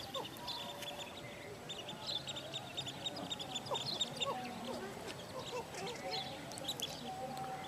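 A mixed flock of waterbirds calling: rapid runs of short, high repeated notes over scattered lower calls.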